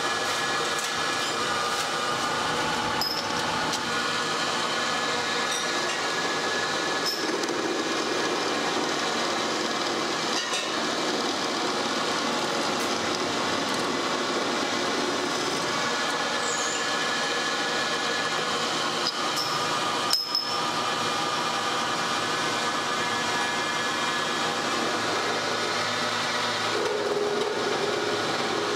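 Metal lathe running while its cutting tool turns a steel rod: a steady machine whine and rattle, with a few light metal clicks and one sharp knock about twenty seconds in.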